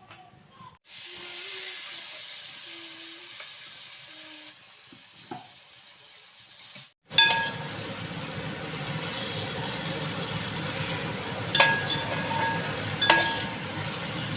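A softer steady hiss, then, after about seven seconds, louder sizzling of cooked pork frying in spiced masala in a pan, with three sharp clinks of a spoon against the pan.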